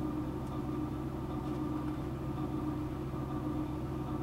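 Steady background hum made of several constant tones, with a few faint ticks of handling.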